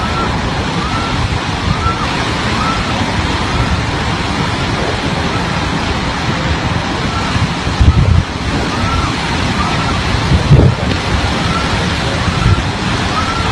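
Hurricane wind and rain making a steady rushing noise, with a faint rise-and-fall chirp repeating about one and a half times a second. Two loud low thumps, like gusts hitting the microphone, come past the middle.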